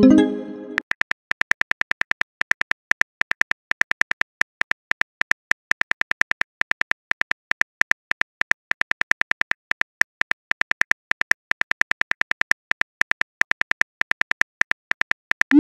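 Simulated phone-keyboard typing clicks from a texting-story app: a rapid run of short, slightly pitched ticks, several a second with brief pauses. It opens with a short pitched message-sent chime that fades within about a second.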